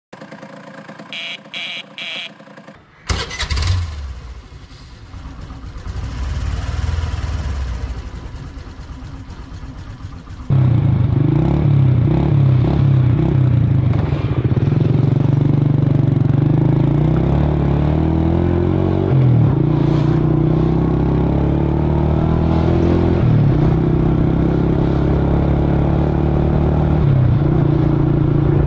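Moped engine sound effects. After three short mechanical sounds, a small moped engine starts about three seconds in and runs quietly. About ten seconds in it cuts to a louder scooter engine running and revving, its pitch rising and falling.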